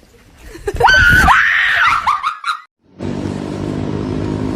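A loud, high-pitched scream lasting about two seconds. After a sudden break, a steady low hum starts and carries on.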